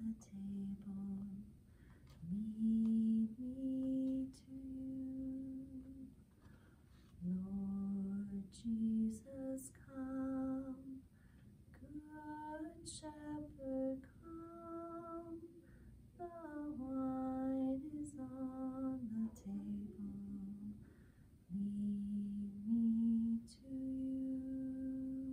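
A woman singing a slow hymn alone, without accompaniment, in long held notes with short breaks between phrases.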